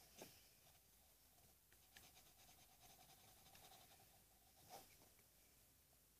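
Faint graphite pencil strokes scratching on paper: short, light strokes, with a slightly stronger stroke near the end.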